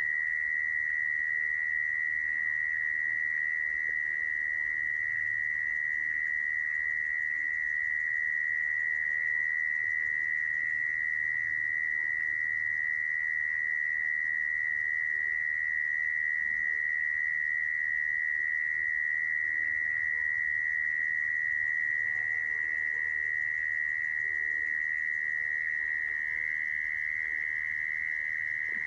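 Mole cricket calling: one continuous, high-pitched song held at a single steady pitch, unbroken throughout.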